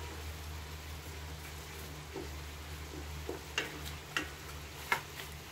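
Wooden spatula stirring rice in a metal frying pan, with several sharp taps and scrapes against the pan in the second half, over a steady low hum.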